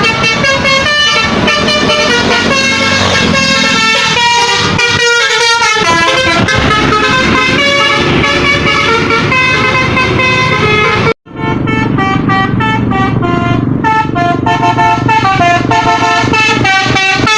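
Basuri 'telolet' multi-tone bus horn playing a rapid tune of quickly stepping notes, then, after a sudden break about 11 seconds in, another telolet horn tune with a bus engine rumbling under it.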